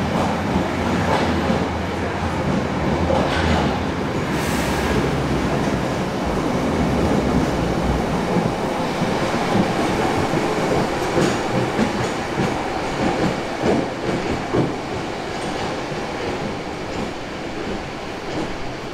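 London Underground train running through a station platform: a steady rumble of wheels on rail with clatter and knocks. A brief hiss about four and a half seconds in.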